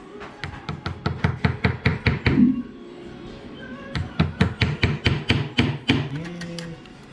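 Two runs of rapid, evenly spaced knocks, about five a second, over background music.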